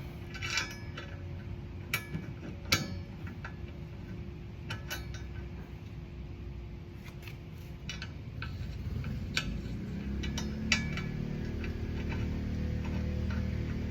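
Scattered light metallic clicks and taps from hand tools and a bolt being worked on a motorcycle saddlebag rack. From about ten seconds in, a low steady hum joins them.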